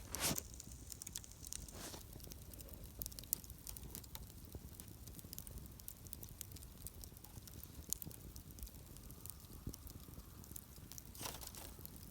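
Wood campfire crackling, with sharp pops and snaps scattered throughout and a few short rushes of hissing noise.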